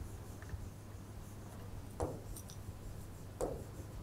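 Chalk writing on a blackboard: a few faint taps and scratches as a word is written, over a low steady hum.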